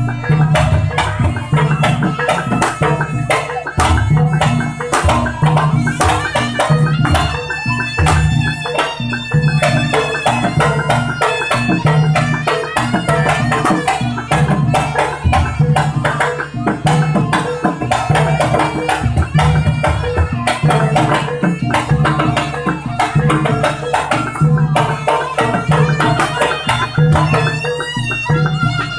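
Jaranan gamelan music: kendang hand drums beating a fast, dense rhythm over a repeating low beat, with struck metal gong-chime tones ringing through. A wavering high melody line comes in near the end.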